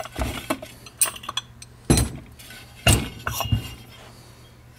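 Secondary clutch parts of a Polaris RZR Turbo clinking and knocking against each other and the workbench as the clutch is taken apart. Several sharp metallic clinks with a short ring; the loudest two come about two and three seconds in.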